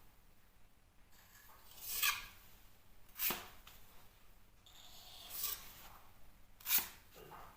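Filling knife spreading and scraping filler over a plasterboard repair, in four separate strokes with short pauses between them.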